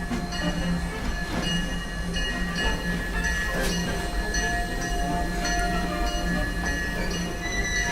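Disneyland Railroad steam locomotive working at the station platform, a steady mechanical sound that pulses about twice a second, with held tones over it.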